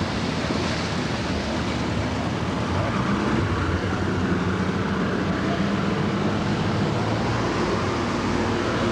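Tour boat's engine running steadily under way, a low drone, mixed with rushing water and wind on the microphone.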